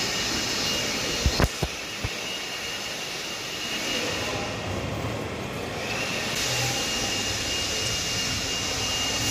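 Motor of a powered tilt table running steadily as it tilts a formula race car onto its side, a hiss with a thin high whine that drops out about four seconds in and returns about two seconds later. A few short low bumps about a second and a half in.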